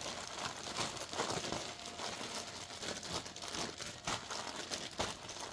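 A plastic bag of hydrated sawdust and grain spawn being worked by hand, with continuous irregular crinkling and crunching as the grain spawn is mixed through the sawdust.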